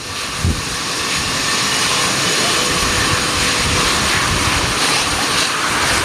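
Learjet 31A's twin Honeywell TFE731 turbofans running at taxi power as the jet pulls away: a steady jet hiss with a thin whine, growing louder over the first second or two and then holding.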